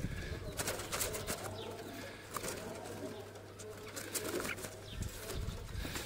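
Doves cooing, with a few light clicks from a wire-mesh cage being handled.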